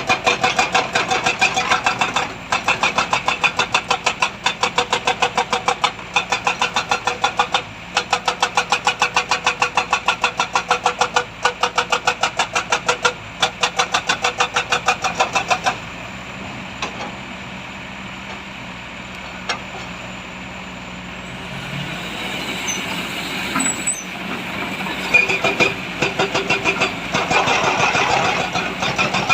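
Heavy diesel engine labouring with a fast, even pulsing of about five beats a second. About halfway through the pulsing stops and the engine settles to a lower, steadier sound, then builds up again toward the end.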